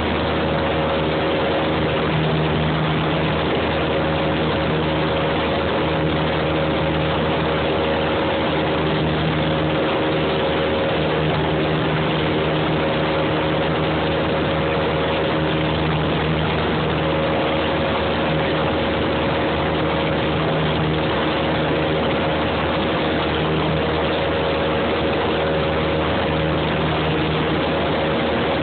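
Engine and propeller of a small single-engine high-wing airplane, heard inside the cabin, running steadily under power as it climbs after takeoff. The drone stays even throughout.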